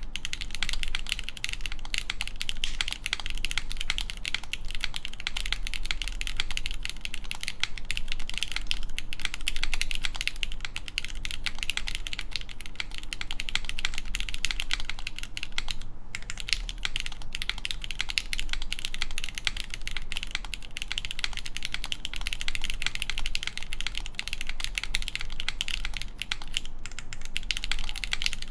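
Continuous typing on a Mode Tempo mechanical keyboard: lubed Gateron X linear switches (Krytox 205g0, 65 g springs) on a full aluminium plate with no foam, and GMK Teradrive keycaps. A steady stream of fast keystrokes with a brief pause about 16 seconds in.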